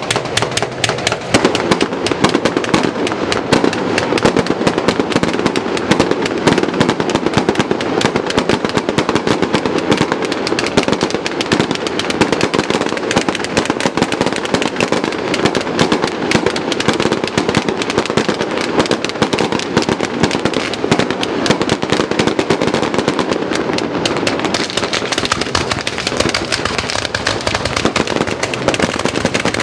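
Dense, unbroken barrage of fireworks shots from 200-shot cake boxes firing off in rapid succession as a display opener, with no pause.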